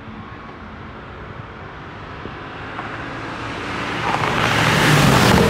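Two race cars, one of them an Audi RS6 Avant with its twin-turbo V8, running at full throttle in a street drag race. They grow steadily louder as they come on and are loudest as they pass near the end.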